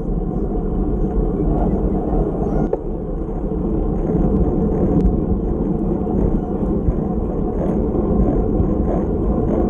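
Steady rush of wind and road noise on a camera mounted on a racing bicycle, with a few faint clicks.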